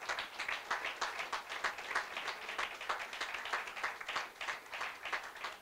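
Audience applauding: many people clapping steadily in a room.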